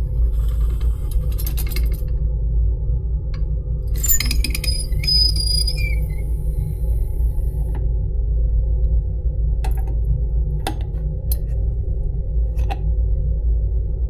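The butterfly disc of a Boeing 747-400ERF high pressure shutoff valve is worked by hand: metal squeaks and scrapes on its axle, loudest for a few seconds in the middle, then a few sharp clicks near the end. The squeak comes from the faulty valve and a new valve does not make it. A steady low hum runs underneath.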